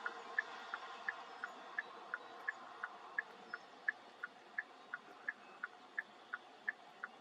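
A car's indicator flasher clicking steadily, an even tick-tock of alternating higher and lower clicks about three times a second, over a faint steady hiss.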